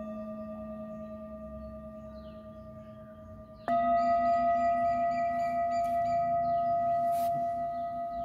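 Nepalese singing bowls struck with a padded mallet. One bowl rings on and slowly fades. A little before halfway, a second bowl is struck, louder and slightly higher, and its ring holds with a slow wavering pulse.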